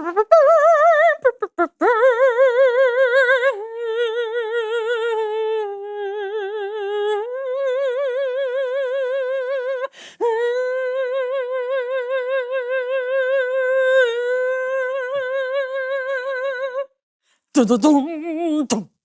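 A solo voice singing long wordless notes in an operatic style with a wide, wobbling vibrato. About five held notes of a few seconds each are sung at slightly different pitches, and a shorter phrase falls away near the end.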